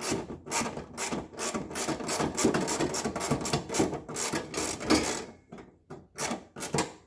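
Screws being driven into the refrigerator fan motor's mounting with a hand screwdriver: a quick, even run of rasping clicks, about three a second, that stops about five seconds in, with a few more strokes near the end.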